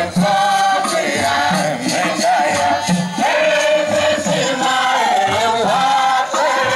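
A group of voices singing a Sunday school church song together, carrying the melody without a break.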